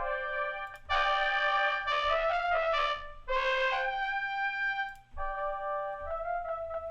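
Spitfire Audio brass quartet sample instrument in Ableton Live 11 playing held brass notes and chords, with a louder, brighter passage and a quick moving line about a second in, and a few short detached notes near the end.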